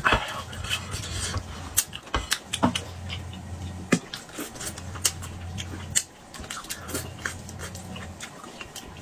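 A person eating spicy braised fish close to the microphone: wet mouth smacks, slurps and chewing, many sharp clicks in quick succession. A low steady hum comes and goes in stretches underneath.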